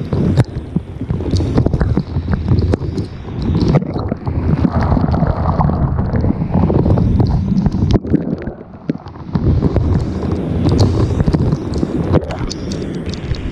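Thunderstorm wind gusting hard over a GoPro's microphone with heavy rain, and raindrops ticking on the camera housing. The gusts rise and fall, easing for a moment about eight seconds in.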